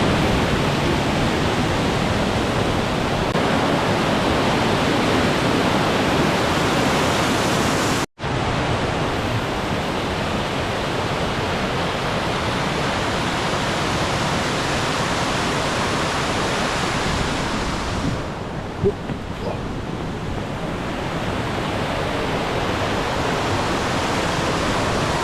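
Mountain-stream waterfalls rushing steadily, the beck running high after heavy rain: a dense, even sound of falling water. There is a brief gap about eight seconds in, and the hiss thins for a moment around nineteen seconds in.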